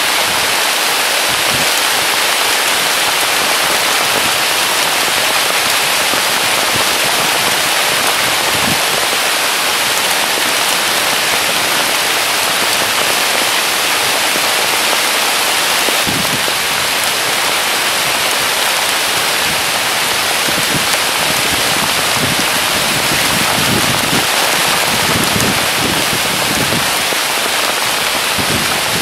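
Heavy rain pouring down steadily on willow foliage and grass, an even hiss with a few soft low thuds of drops scattered through it.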